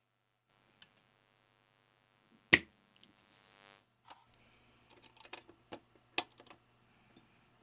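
Custom keyboard parts being handled during assembly: scattered small plastic clicks and clacks, with two sharp loud clacks about two and a half and six seconds in, and a brief scrape just after three seconds.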